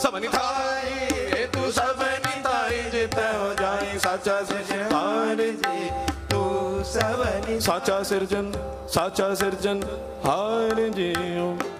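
Gurbani kirtan in Raag Asa: a melodic line of quick, gliding ornamented runs over frequent tabla strokes.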